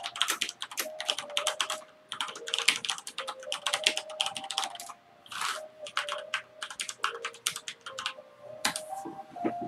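Fast typing on a computer keyboard, quick clicking keystrokes in bursts of a couple of seconds with short pauses between them.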